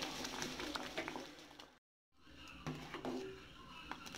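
Metal ladle stirring and scooping thick payasam in a metal pot, with short clicks and knocks of the ladle against the pot. The sound cuts out completely for a moment about two seconds in, then the clicking resumes more quietly.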